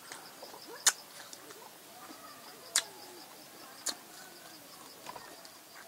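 Three sharp clicks at irregular intervals, over a faint outdoor background with faint bird calls.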